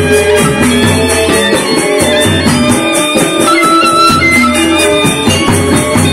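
A Sasak saron ensemble from Lombok playing: bronze-keyed metallophones struck with mallets over a barrel drum, with a fast, even pulse of metallic strikes, about four to five a second.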